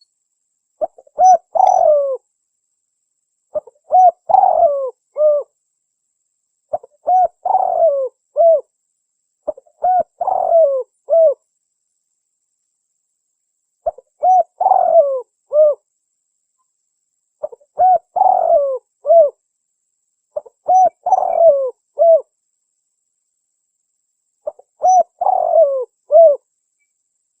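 Spotted dove (tekukur) cooing, eight times: each phrase is a few short notes leading into a longer falling coo and a closing note, repeated about every three seconds with silence between.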